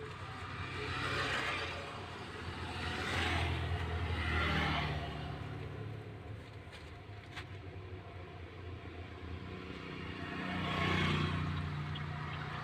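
A truck running along a road, heard from inside the cab: a steady low engine drone under road and tyre noise that swells louder three times.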